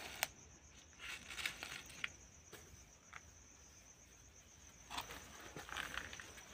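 An insect trilling steadily in a thin high tone, with scattered short rustles and clicks from handling the pot and moving the phone, the sharpest just after the start and more from about five seconds in.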